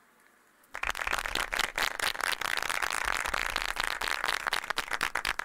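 Audience applauding, with many hands clapping at once, starting suddenly about a second in after a moment of near silence.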